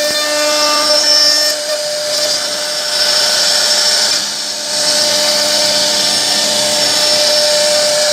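CNC router spindle running and cutting into a wooden board, a steady whine with cutting hiss. The load shifts a few times and eases briefly about four to five seconds in.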